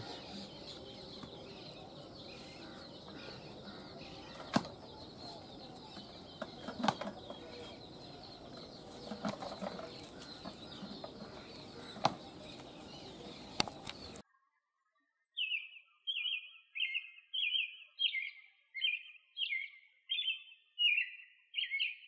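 Faint outdoor ambience with a few sharp knocks. It cuts abruptly to silence, then a bird calls about ten times in a row: short, high calls of about one and a half a second, louder than the ambience before.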